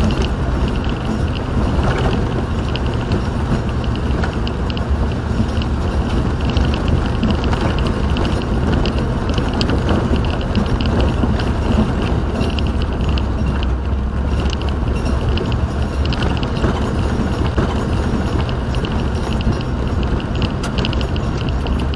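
Steady road and engine noise inside a moving car's cabin: a constant low rumble with tyre hiss over it.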